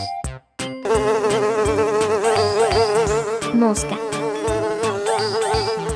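Housefly buzzing in flight: a continuous drone whose pitch wavers up and down, starting just under a second in after a brief silence.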